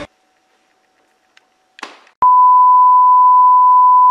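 About two seconds of near silence and a brief burst of noise, then a click and a steady, loud, single-pitched test tone: the tone that goes with television colour bars.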